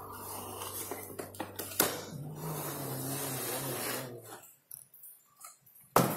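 Cardboard box sleeve sliding off and a clear plastic blister tray being handled, with scraping, rustling and a sharp click. Background music plays under it and stops about four seconds in. A loud knock comes near the end.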